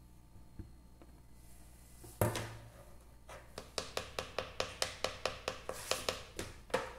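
A spatula patting and tapping the surface of freshly poured homemade soap in a plastic mould: one sharp knock, then a fast, even run of sharp taps, about five a second.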